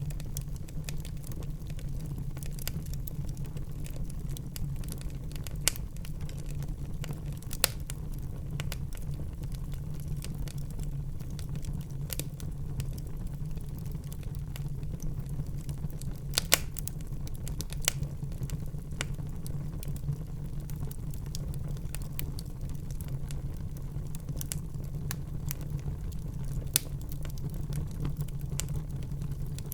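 Fire burning in a fireplace: a steady low rumble of flames under continuous fine crackling, with a handful of louder sharp pops scattered through.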